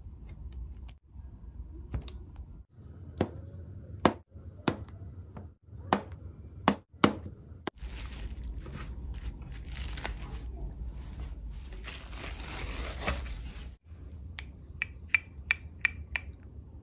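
A fork pricking holes in soft bread-dough rounds on a baking tray, giving a series of sharp clicks. Then plastic cling wrap is crinkled and stretched over the tray for several seconds. Near the end, quick light clinks come from a utensil beating egg in a small glass bowl.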